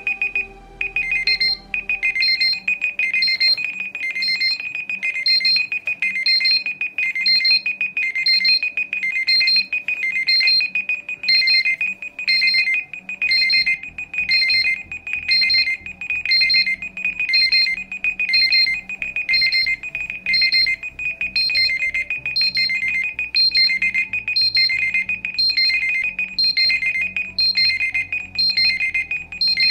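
Timer alarms of several Android phones (LG G4S, HTC Desire 600, Ixion X245, ZTE Blade X3) going off together, their alarm tones overlapping: a steady high tone with evenly repeating beeps, and a lower looping melody joining a couple of seconds in.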